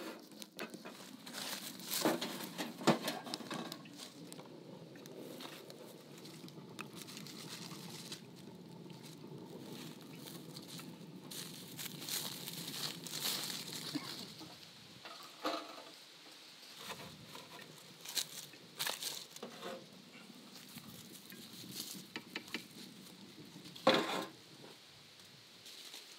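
Wood fire crackling in a small metal camp stove, with a few sharp metallic clinks of a poker against the stove's hob lids early on, then scattered small pops and clicks.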